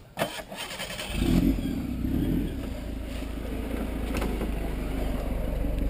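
Suzuki Samurai's four-cylinder engine running as the 4x4 crawls close past on a dirt trail. A sharp knock comes just after the start, and the engine sound builds about a second in and stays loud and steady.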